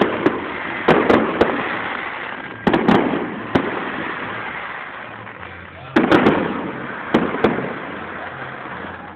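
Aerial fireworks exploding: clusters of sharp bangs at the start, about a second in, near three seconds and around six to seven seconds in, each followed by a long fading echo.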